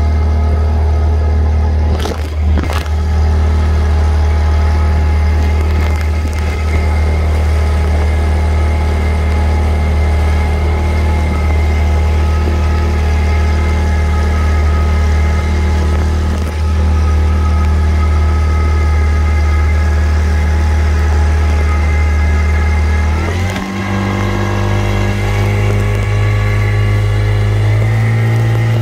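Small motorboat's engine running steadily under way, with two brief knocks about two seconds in. Near the end it speeds up to a clearly higher, steady pitch as the throttle is opened.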